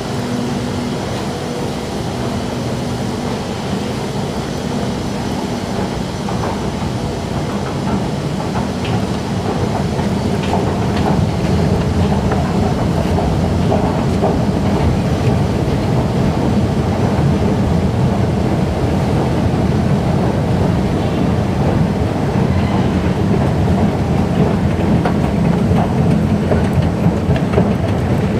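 Steady low rumble of an underground metro station: train and machinery noise, growing louder about a third of the way in, with a few faint ticks.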